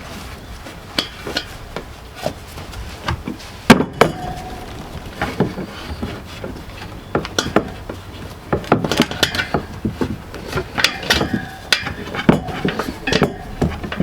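Hand tools and metal parts clinking and knocking irregularly while being handled, as in work on a motorcycle wheel and tyre, with one sharper knock about four seconds in.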